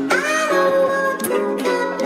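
Background music with a plucked-string accompaniment and a sung melody.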